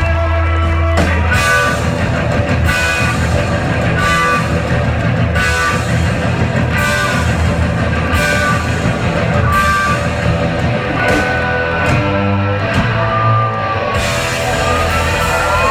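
Live rock band playing loud electric guitars over a drum kit. A low note is held for about the first second, then a driving riff starts, with a hard hit about every one and a half seconds.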